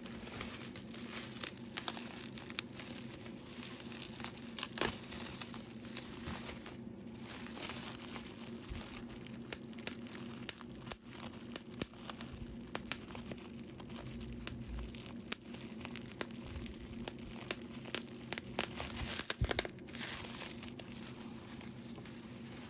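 Packaging of new art supplies being handled and unwrapped: crinkling and tearing, with many scattered sharp clicks and snaps.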